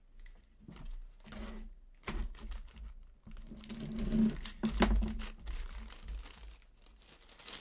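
Plastic packaging bag being handled and cut open, crinkling with scattered clicks and taps, busiest about four to five seconds in.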